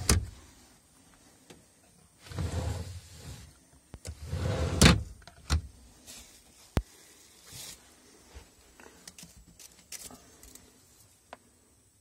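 A window being slid or shifted in its frame: three scraping slides about a second long each, the third ending in a sharp click, then a few lighter knocks and ticks.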